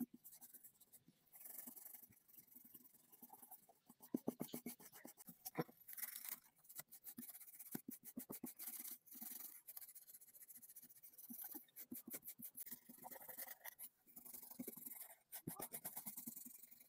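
Small hand wire brush scrubbing rust off a rusty steel scissor blade: rapid back-and-forth scratching strokes in runs, broken by a few brief pauses.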